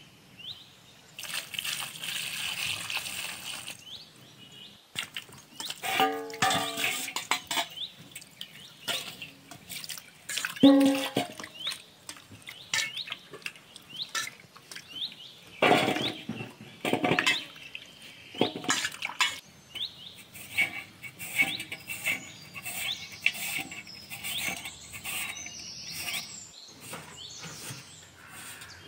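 Water poured and sloshing in a steel bowl as peeled potatoes are washed by hand, with knocks of potatoes and steel bowls. Near the end comes a run of quick small ticks as potatoes are sliced on a hand slicer.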